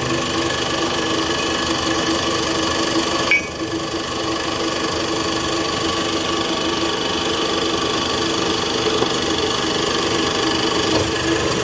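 Pneumatic impact wrench running in a steady rattle as it unscrews the wheel studs from a Volvo FH13 truck hub. It pauses briefly about three seconds in and stops near the end.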